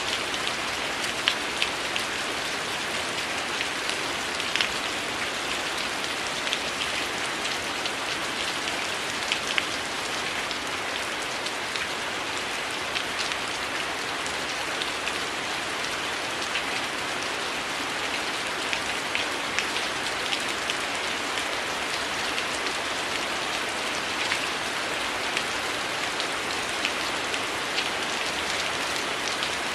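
Heavy rain falling steadily, a dense even hiss, with scattered sharp crackles from a wood fire popping irregularly over it.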